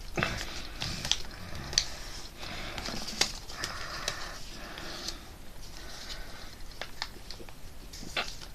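A sheet of paper being handled and folded by hand: irregular rustling and crinkling with scattered sharp little clicks as it is creased.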